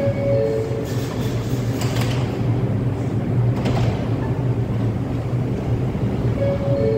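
Descending two-tone door chime of an R142 subway car, once at the start and again near the end, over the steady low hum of the stopped train. Two short hisses sound about two seconds and three and a half seconds in.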